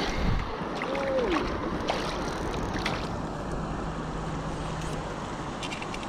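Steady rush of river current with wind buffeting the microphone, broken by a few faint clicks.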